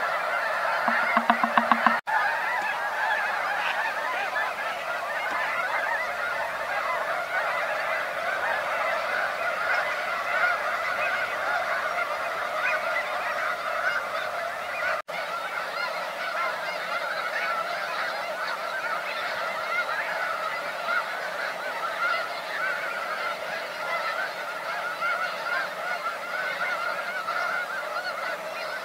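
A large flock of snow geese calling without pause, a dense chorus of many overlapping honks. A louder, lower, rapidly pulsing sound rides over the chorus for the first two seconds. The sound cuts out for a moment about two seconds in and again about halfway.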